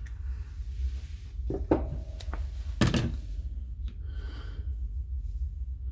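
A few light knocks and taps from tools and small parts being handled on a workbench, the sharpest about two to three seconds in, over a steady low hum.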